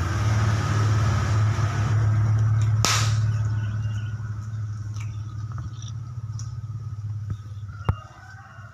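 Low, steady engine hum that fades away over the second half, with a sharp click about three seconds in and another near the end.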